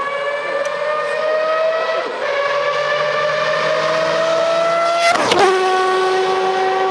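Car engine under hard acceleration, its pitch climbing steadily. About five seconds in there is a sharp gear change, and the pitch drops before it steadies again.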